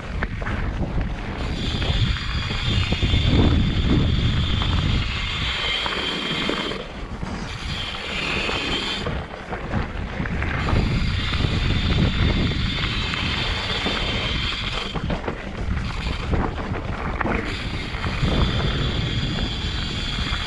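Wind buffeting the microphone of a mountain bike's camera on a dirt singletrack ride, with knobby tyres rolling over dirt and loose stones. A high buzz runs underneath and drops out a few times.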